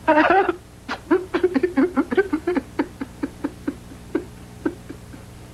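A man's voice: a loud vocal outburst at the start, then a run of short, pitched, breathy pulses, about four a second, that space out and fade near the end, as in convulsive laughing or sobbing.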